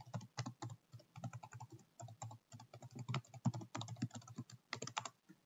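Typing on a computer keyboard: a quick, uneven run of keystrokes entering a long passphrase, which stops about five seconds in.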